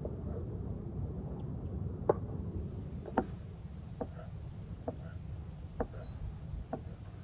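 Chef's knife slicing through hard-boiled eggs, the blade knocking on a wooden cutting board six times at about one stroke a second, over a low steady rumble.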